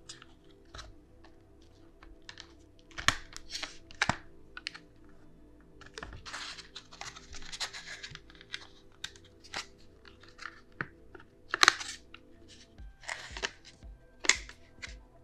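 Clear plastic clamshell tray of a DDR5 RAM module being prised apart and the module pulled free: crackling and clicking plastic, with sharp snaps about three seconds in, about twelve seconds in and near the end.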